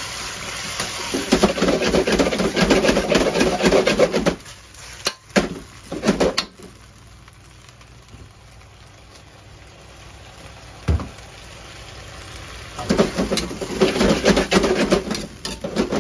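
Steel wok ladle scraping and clattering against an iron wok as pea shoots and vegetables are tossed through a thickened salt sauce to coat them. Two busy bouts of stirring, separated by a quieter stretch with a few single knocks of the ladle on the pan.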